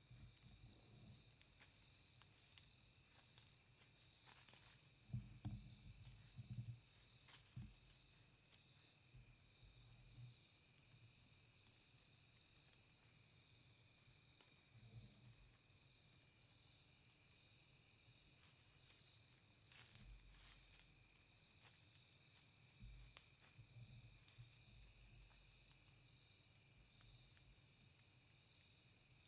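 Steady, high-pitched insect chorus trilling without a break, with a few faint low thumps now and then.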